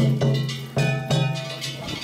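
Gion festival hayashi music played on a float: taiko drum strikes mixed with ringing metal percussion. There are sharp strikes at the start and twice around the second mark, with ringing tones held between them.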